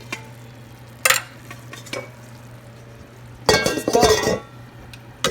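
Kitchen utensils and dishes being handled: a sharp clink about a second in, a lighter one near two seconds, then a louder spell of clattering and scraping around three and a half seconds in. A steady low hum runs underneath.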